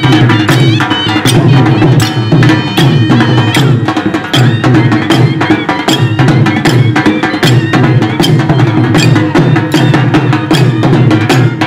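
Gujarati folk band music for raas garba: dhol drums beating a fast, even rhythm with sharp clacking strikes, under a wavering wind-instrument melody and a steady low drone.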